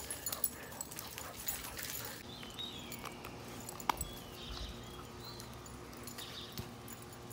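A dog moving about on grass and dirt: scattered light clicks and rustles, busiest in the first two seconds, with a sharper click about four seconds in.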